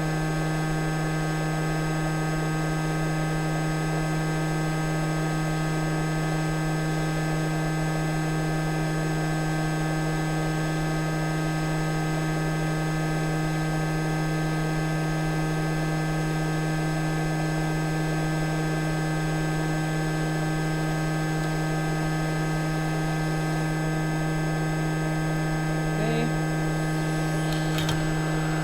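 JBC hot air rework station's blower running steadily: a constant hum with an airy hiss while heating a connector on a logic board to lift it off. A couple of faint clicks come near the end.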